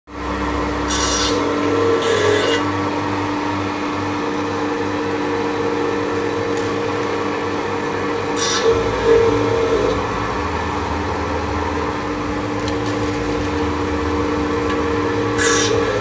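680B enamel wire stripping machine running with a steady electric-motor hum. Several short scraping hisses break in as enamelled wire is fed into the stripping head and its enamel is scraped off.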